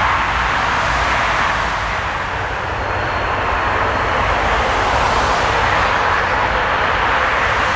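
Airliner engines running on an airfield: a steady, loud rushing noise with a low rumble beneath, dipping briefly about two and a half seconds in and growing brighter later.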